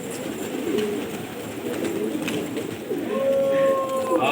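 Domestic pigeons cooing, low and repeated. A steady held tone comes in about three seconds in.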